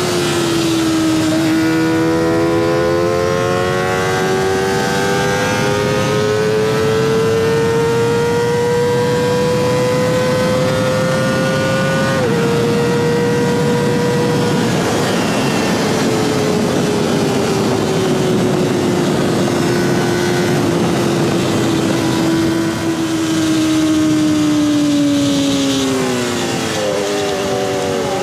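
Kawasaki ZX-25R's 249 cc inline-four screaming at high revs through a DX Generation Sphere aftermarket exhaust. The pitch climbs slowly for about ten seconds, dips briefly at a gear change, then falls away steadily for over ten seconds, with a few quick blips near the end and a steady rushing noise underneath.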